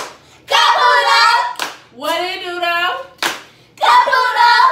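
Girls chanting a sing-song phrase, with a single sharp hand clap before each phrase, three claps about every second and a half.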